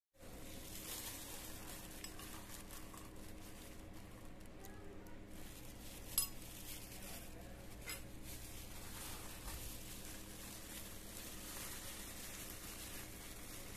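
Light handling noises over a steady hiss and low hum: plastic-gloved hands working a filled egg roll on a plate, with a sharp clink about six seconds in and a fainter one about two seconds later.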